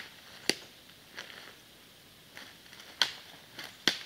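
Footsteps through dry leaf litter and twigs on a forest floor, with a few sharp cracks of snapping sticks: about half a second in, at three seconds and just before four.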